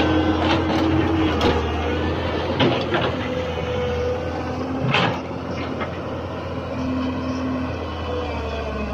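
Hyundai wheeled excavator's diesel engine running steadily under load while the arm dumps and digs soil, with whining tones that come and go and a few sharp knocks, loudest about five seconds in.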